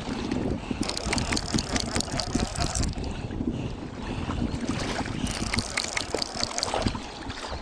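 Wind buffeting the microphone: a steady low rumble with scattered crackles and clicks.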